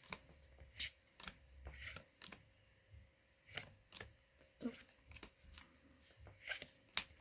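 Trading cards being flipped through by hand, one at a time: a string of short, crisp flicks and slides at an uneven pace of about one or two a second.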